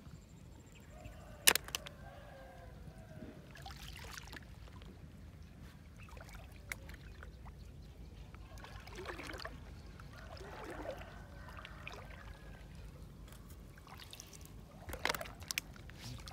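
Hand sloshing and splashing in shallow lake water while picking snails, in several soft swells, with one sharp knock about a second and a half in.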